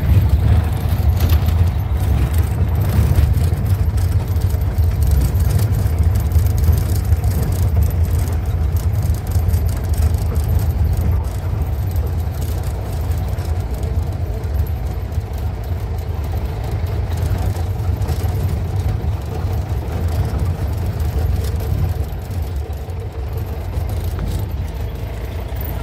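Safari jeep driving along a dirt forest track, heard from inside the cab: a steady low engine and road rumble, easing a little in the second half.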